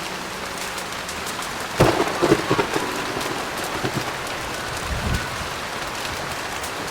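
Heavy rain falling steadily, broken about two seconds in by a sharp thunderclap that crackles for about a second, with a lower rumble of thunder around five seconds in.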